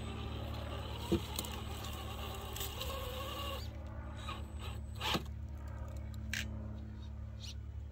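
Redcat Gen8 V2 RC rock crawler's electric motor and geared drivetrain whining at crawling speed as it climbs rock, with a steady low hum beneath. Two sharp clicks, about a second in and about five seconds in, as the tires and chassis knock on the rock.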